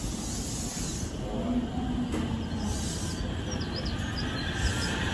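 JR West suburban electric train pulling out of the station, its motors whining in several rising tones as it gathers speed, over a steady hiss of background noise.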